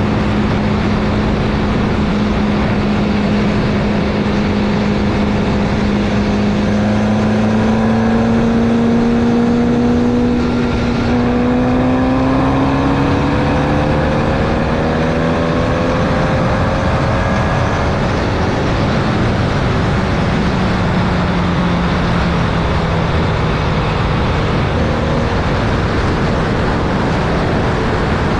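Formula Vee race car's 1200cc air-cooled Volkswagen flat-four engine running hard, heard onboard with wind and road rush. Its pitch climbs slowly for about twelve seconds, then drops, and falls again in the second half.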